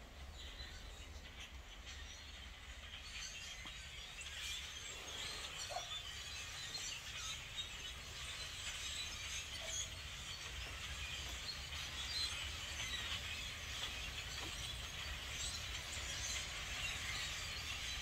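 A large flock of blackbirds calling together: a dense chatter of countless overlapping chirps and squeaks that grows steadily louder as the flock comes closer.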